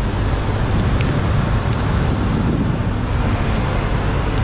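Heavy truck diesel engine running steadily, a low hum under a steady rush of wind noise.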